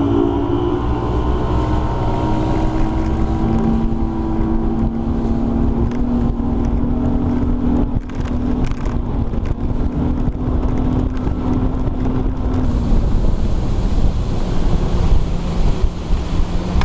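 Bass boat's outboard motor running at speed across the lake with a steady engine tone, wind buffeting the microphone. About three-quarters of the way through, the engine pitch drops a little.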